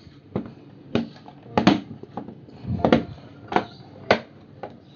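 Bottom case of a Lenovo V14-IIL laptop clicking as it is pressed down into place, its clips catching: about eight sharp clicks, evenly spaced, a little more than one a second.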